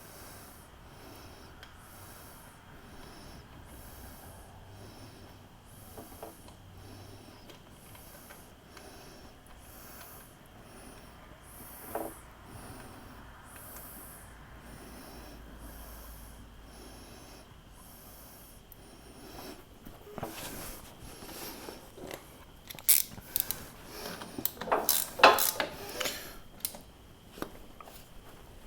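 Drain plug being put back into a Kubota BX23S front axle: mostly faint handling noise, then near the end a cluster of sharp metal clicks and scrapes as it is tightened with a hand tool.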